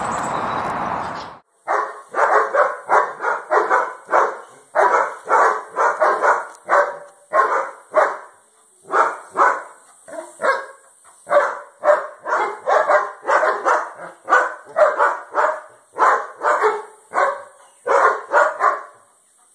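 A second and a half of rushing noise, then an adult German shepherd barking over and over in quick runs of two to four sharp barks, about two or three a second.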